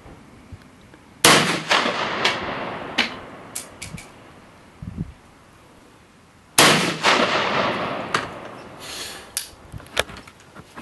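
SKS semi-automatic rifle firing two loud shots about five seconds apart, each followed by a long fading echo, with fainter, more distant gunshots in between.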